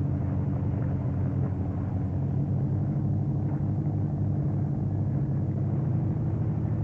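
A boat's engine running steadily with a low, even drone.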